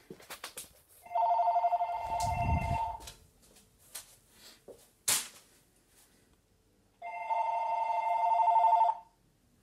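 VTech cordless phone ringing with its electronic ringer: two rings of about two seconds each, some four seconds apart, each a fast two-tone trill. Light handling clicks and one sharp click fall between the rings.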